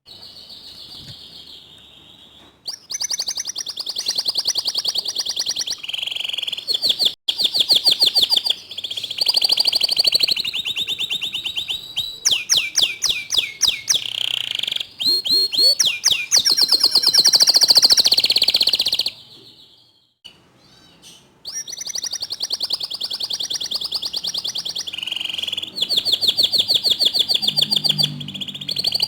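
Domestic canary singing in long, rapid, high-pitched trills and rolling phrases, with a short break about two-thirds of the way through. This is a canary song used to set off other canaries into loud singing.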